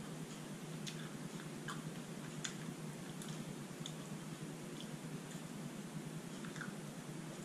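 A person chewing a mouthful of santol pulp, with scattered soft wet mouth clicks over a steady low hum.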